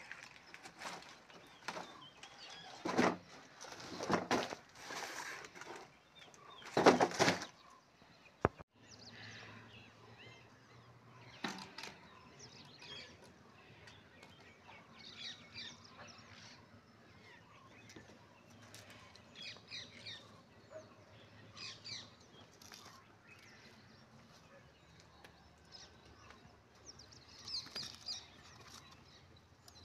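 Cardboard rustling and scraping as a kitten moves about in a flattened box, in a few loud bursts during the first several seconds. After a cut there is quiet outdoor background with scattered faint bird chirps.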